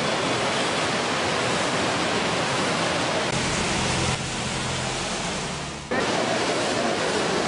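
Steady roar of fast-flowing floodwater rushing across and alongside a road. A little past the middle it turns duller with a low rumble for about two seconds, then comes back at full strength all at once.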